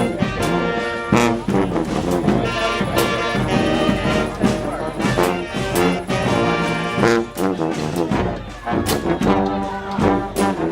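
Street brass band playing a tune: horns sounding in chords over a steady beat of sharp percussive hits.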